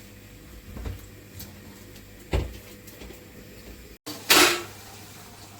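Kitchen pots and lids being handled: two dull knocks, then a short, louder clatter a little after four seconds in.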